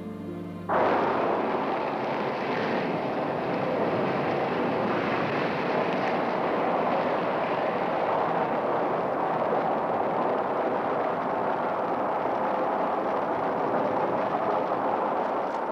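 A steady, loud rushing noise that starts suddenly under a second in and eases off slightly near the end.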